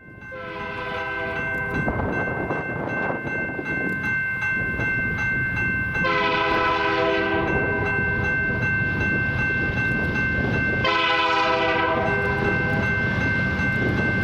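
Diesel freight locomotive horn on a Canadian National potash train sounding three blasts of about a second and a half each, spaced several seconds apart, over the steady rumble of the passing train.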